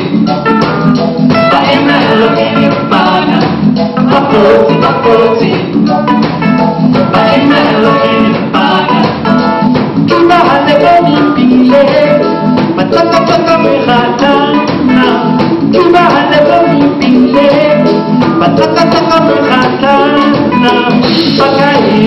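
Live band music: several vocalists singing over drums and electric guitar, continuous throughout.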